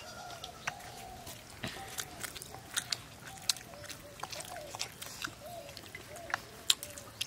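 People eating a meal of rice and fish curry by hand: chewing, with scattered small sharp clicks from hands and plates. Doves coo faintly and repeatedly underneath.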